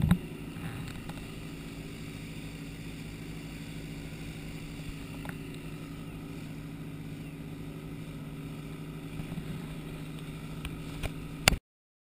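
Small motorboat's engine running at a steady pitch over the hiss of water and wind on the hull. It cuts off abruptly with a click near the end.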